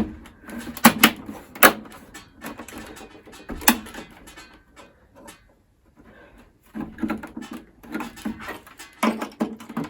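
iMac G3 internal parts, hard plastic and metal, clicking and knocking as they are slid back into the case. Several sharp clicks come in the first two seconds and another a little before four seconds, then softer handling rustle after a short quiet spell.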